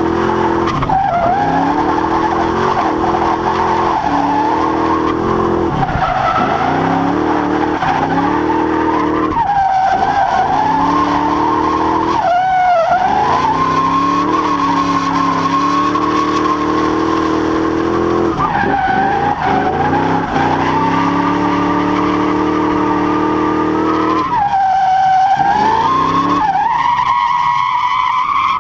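Fox-body Ford Mustang's 5.0-litre 302 V8 revving hard through a drift run, heard from inside the car, with the tyres squealing in a long wavering tone. The revs drop and climb again several times, around 1, 6, 9, 12, 19 and 25 seconds in.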